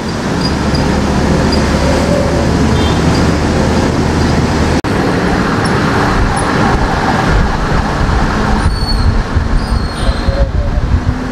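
Scania R580 truck's V8 diesel engine running at low speed with a steady low hum, under the hiss of rain and wet road, heard from the cab. The sound drops out for an instant about five seconds in, then goes on.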